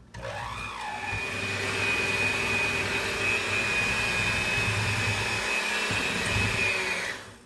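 Electric hand mixer running steadily, beating eggs into creamed butter and sugar in a mixing bowl. Its whine settles in over the first second and it cuts off shortly before the end.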